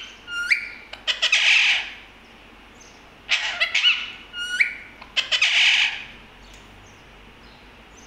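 Alexandrine parakeet giving harsh, agitated screeches in two bouts mixed with short rising whistles, then falling quiet about six seconds in.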